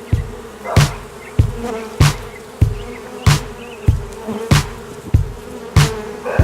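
Swarm of honeybees buzzing steadily around the box they have just moved into. A regular soft thump with a hiss repeats about every two-thirds of a second over the buzz.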